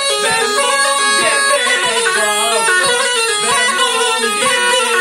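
Tulum, the Turkish Black Sea bagpipe, playing a quick, heavily ornamented melody with a continuous reedy sound, accompanied by saz.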